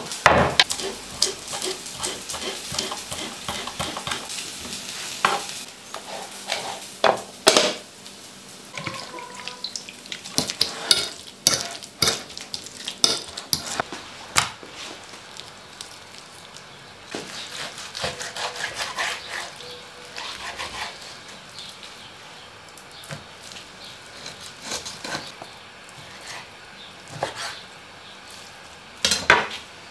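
Kitchen food-prep handling: irregular clicks, taps and clatter of a knife, utensils and plates on a wooden cutting board and countertop. A steady hiss runs under the clatter for the first several seconds.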